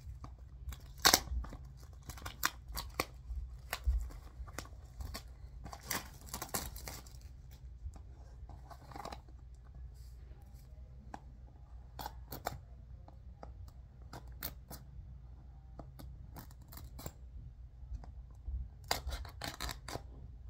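Plastic shrink-wrap on a DVD case being picked at, slit and torn off: an irregular run of sharp clicks, scratches and crinkly rasps, busiest about six seconds in and again near the end.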